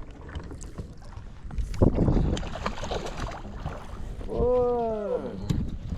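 Knocks, bumps and rustling in an aluminum jon boat while a freshly caught largemouth bass is handled, louder for a second or so about two seconds in. A drawn-out voice sound that rises then falls follows about four seconds in.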